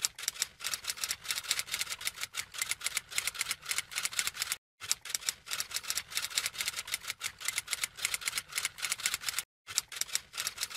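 Typewriter keystroke sound effect: rapid clicks, several a second, with two short breaks, about halfway through and near the end.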